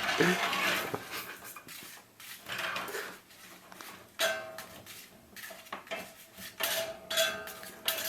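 Metal lock-picking tools scraping and clinking against a lock, in a run of separate strokes, some leaving a brief ringing tone.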